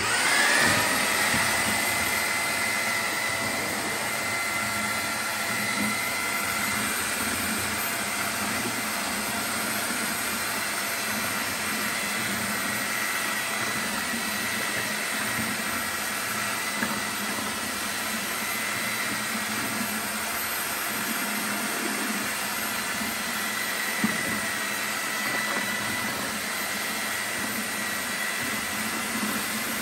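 Handheld electric paddle mixer starting up and then running steadily with a motor whine, its paddle stirring plaster slurry in a bucket.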